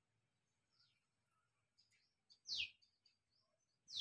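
Bird calls: two loud, quick calls that sweep down in pitch, about a second and a half apart, with faint short chirps in between.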